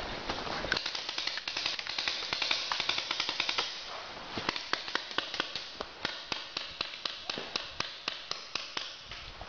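Paintball markers firing: a rapid, irregular run of sharp pops, several shots a second, thickest in the first few seconds and thinning towards the end.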